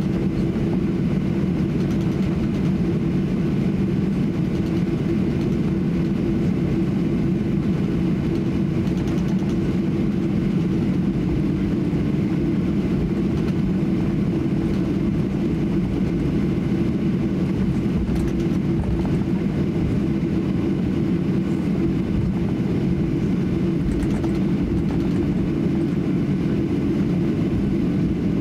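Steady cabin noise inside a Boeing 737-800 taxiing, its CFM56-7B engines at idle: a low hum with a couple of held drone tones, unchanging throughout.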